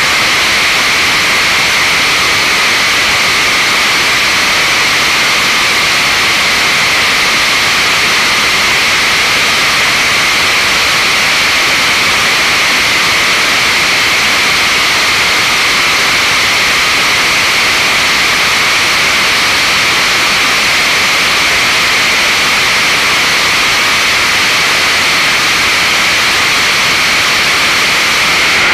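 Copenhagen Suborbitals' BPM-5 bipropellant liquid rocket engine, burning ethanol and liquid oxygen, firing at steady full thrust on a static test stand. The exhaust gives a loud, even hissing rush with no change in level throughout.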